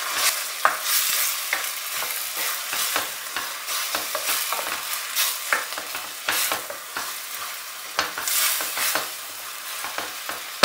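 Chopped onions, tomato and boiled green lentils sizzling in olive oil in a stainless steel pot while a wooden spoon stirs them, scraping and knocking against the pot in irregular strokes.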